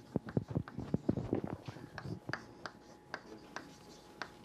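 Chalk writing on a blackboard: quick, irregular taps and scratches, close together in the first second or so, then sparser.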